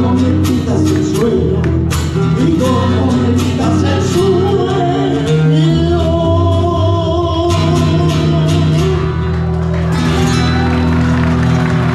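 A man singing a Peruvian tondero, accompanied by two acoustic guitars strumming and plucking. About halfway through he holds long sung notes over sustained guitar chords.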